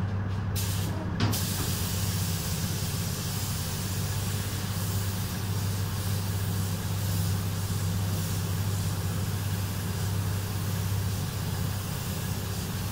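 Compressed-air paint spray gun hissing steadily as it sprays metallic paint onto a car body. The hiss starts with a small click about a second in, over a steady low hum.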